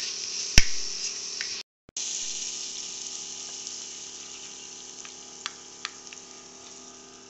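Onions, tomatoes and green chillies sizzling in oil in a pan. A sharp knock comes about half a second in, and a few light clicks of the slotted spatula follow later. The sizzle cuts out briefly near the two-second mark, then slowly fades.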